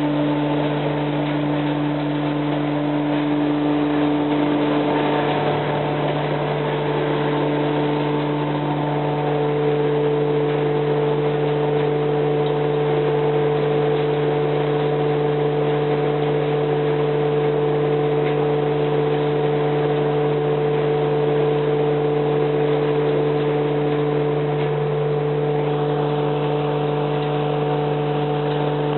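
Mobile trommel screen running: a steady machine drone with a few constant humming tones.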